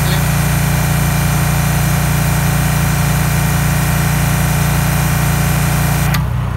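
Kränzle K1322TS electric pressure washer running under pressure, its motor and pump giving a steady hum. It cuts off suddenly about six seconds in.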